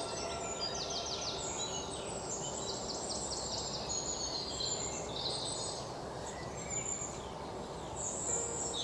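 Several birds singing and chirping, with quick rapid trills among the calls, over a steady background hiss.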